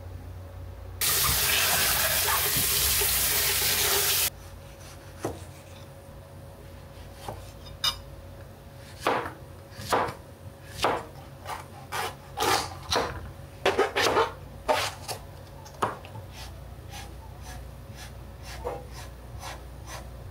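A kitchen tap runs hard for about three seconds, starting and stopping abruptly. Then a chef's knife slices zucchini and eggplant on a cutting board: about twenty sharp, irregular knocks of the blade on the board.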